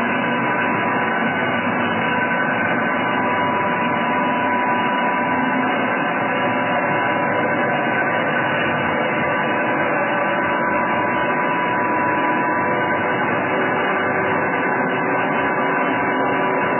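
ESTARTA 327 centerless grinder running: a steady machine hum with a constant high tone over a hiss.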